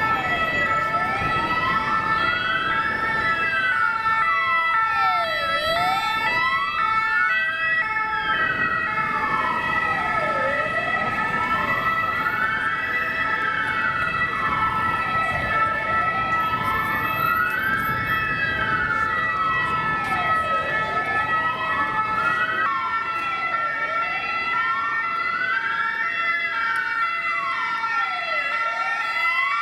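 Ambulance sirens: a wail siren sweeping slowly up and down, about one full rise and fall every five seconds, layered over a steady high tone and shorter repeated tones from another siren.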